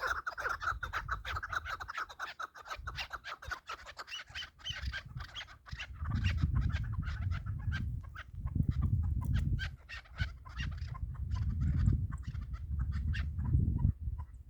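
Chukar partridges calling, a rapid run of short clucking 'chuk' notes that carries on throughout. From about six seconds in, bursts of low rumble come and go beneath the calls.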